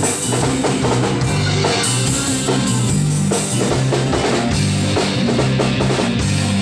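A band playing an instrumental intro: drum kit keeping a steady beat over guitar and a moving bass line.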